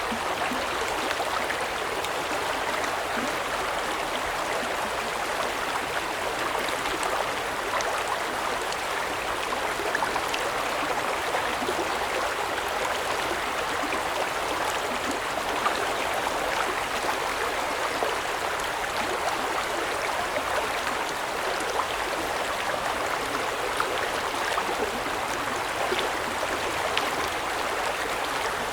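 River stream flowing: a steady rush and babble of water over stones, with many small splashes and droplet ticks.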